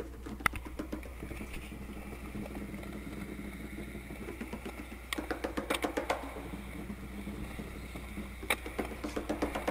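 Skateboard wheels rolling on smooth concrete, a steady low rumble, with scattered clicks and a sharp knock about eight and a half seconds in.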